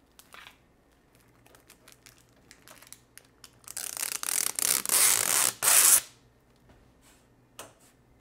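Clear protective plastic film being peeled off a laser engraver's control panel: a crackling, tearing sound lasting about two seconds, a little past the middle, after lighter rustling and handling clicks. A short click near the end.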